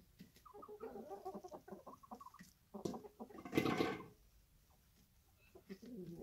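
Chickens clucking in a run of short calls, with one louder, longer call about three and a half seconds in and a few more clucks near the end.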